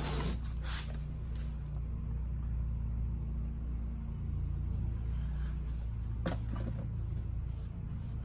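A steady low machine hum, with a few brief clicks and rubbing sounds near the start and about six seconds in as soap is worked around the tire bead on the rim.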